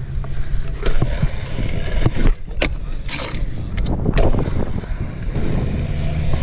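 Stunt scooter wheels rolling fast over a concrete skatepark bowl, a steady rumble with wind on the microphone. Several sharp knocks cut through as the scooter hits transitions and the bowl's metal coping.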